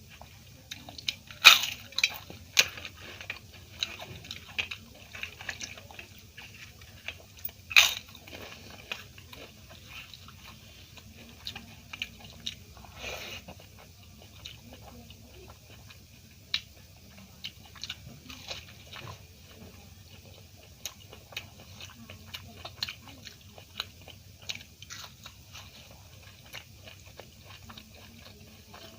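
A person biting into and chewing crisp fried food, with sharp crunches and crackles. The loudest crunches come about one and a half seconds in and near eight seconds, followed by softer chewing crackles.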